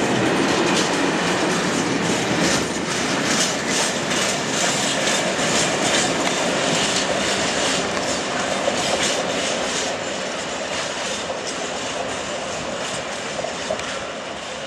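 Freight train of bogie aggregate hopper wagons rolling past, the wheels clattering over rail joints and points in a steady clickety-clack. The sound fades over the last few seconds as the end of the train draws away.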